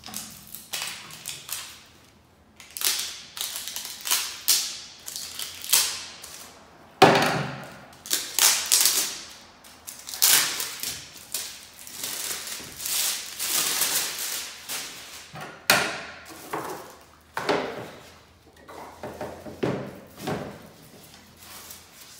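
Ceiling fan blades and their cardboard and plastic packaging being handled: irregular rustling and scraping with knocks and thuds as the blades are unwrapped and laid on the table, busiest in the middle.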